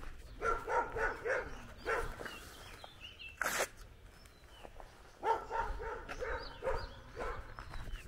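A dog barking in two runs of rapid barks, several barks each, the second run starting about five seconds in. Faint bird chirps come in between.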